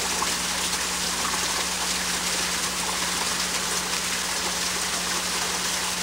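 Steady rushing hiss with a constant low hum under it, with no separate events.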